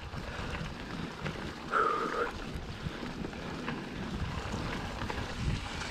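Mountain bike descending a dirt trail strewn with dry leaves: wind buffeting the helmet camera's microphone over tyre rumble and small knocks from the bike. About two seconds in there is a short squeal.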